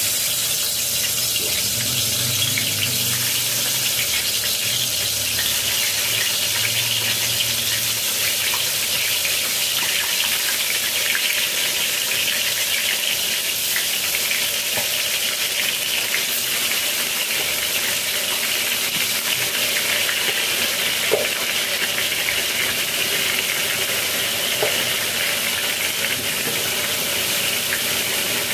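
Long strips of eggplant shallow-frying in hot oil in a stainless steel pan, sizzling steadily.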